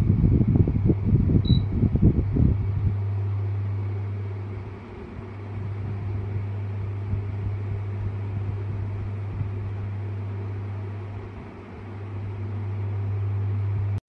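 PowerPac 16-inch wall fan running with a steady low motor hum. Its air buffets the microphone with a rumble for the first few seconds, and the sound dips and swells twice as the oscillating head turns away and back. A brief high beep sounds about a second and a half in.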